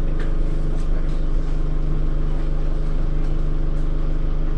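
Bus diesel engine idling with a steady low hum, heard from inside the bus while it stands still.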